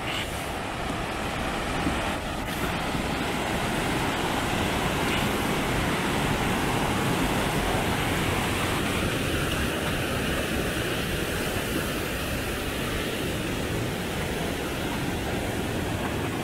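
Steady rushing of a fast mountain river's whitewater rapids.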